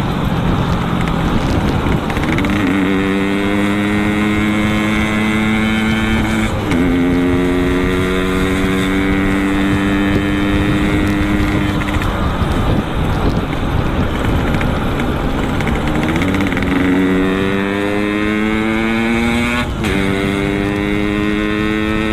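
Yamaha RX-King's two-stroke single-cylinder engine through a Boban C33 aftermarket exhaust, accelerating through the gears on the move. The pitch climbs steadily and drops sharply at each gear change, about seven and twenty seconds in. In between it eases off for a few seconds, with a steady rush of wind and road noise throughout.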